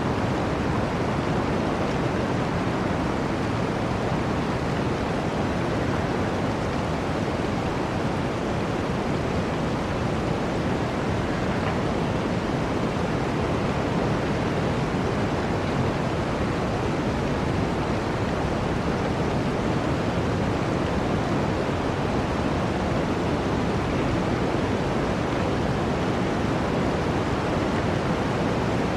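Running water rushing steadily in an even, unbroken stream, with no single splashes standing out.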